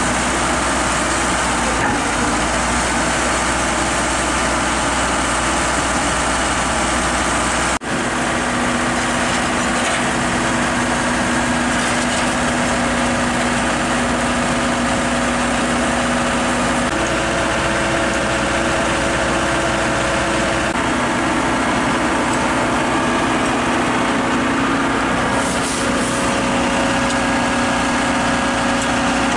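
Heavy diesel engine idling steadily, with a brief drop in the sound about eight seconds in before the idle carries on.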